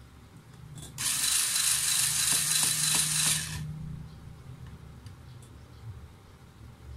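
Small electric screwdriver running for about two and a half seconds, starting about a second in, as it unscrews a screw from a laptop's bottom cover. Its motor gives a steady hum under a loud hiss, then stops abruptly.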